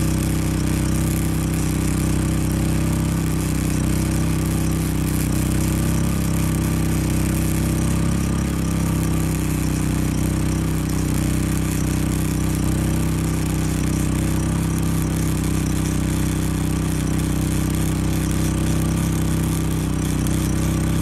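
Champion 3400-watt inverter generator's engine running steadily at high speed under heavy load from a welder, with the continuous crackle of a flux-core welding arc over it. At the welder's turned-down setting the generator keeps up through one long, unbroken bead.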